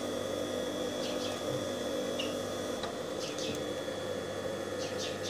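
Steady hum of an industrial sewing machine's 220 V clutch motor running while the machine stands still, with a few faint clicks.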